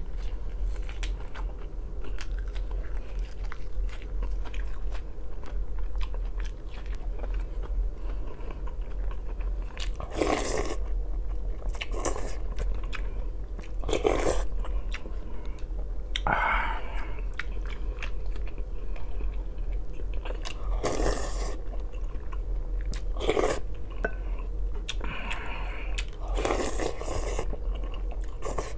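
Close-miked eating of borscht: steady chewing with small wet mouth clicks, and from about a third of the way in, a louder slurp from the wooden spoon every few seconds. A steady low hum runs underneath.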